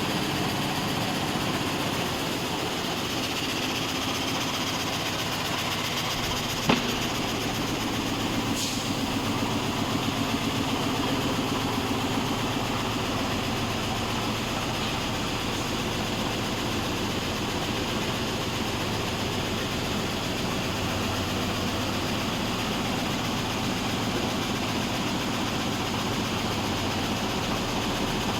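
SanHe 3030 frame saw machine running steadily as it saws wood, with one sharp knock about seven seconds in.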